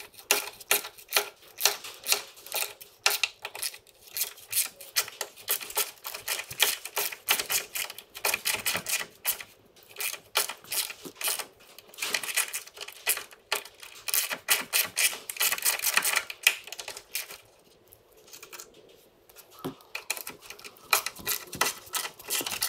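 Ratchet spanner clicking in fast runs as bolts are undone, with a short quieter pause about three-quarters of the way through.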